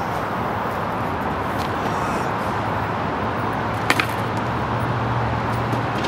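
Steady rushing background noise with a low hum underneath, broken by a single sharp click about four seconds in. A skateboard knocks hard onto the pavement right at the end.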